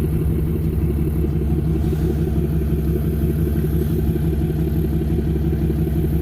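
Truck engine idling steadily, with an even, rapid pulse.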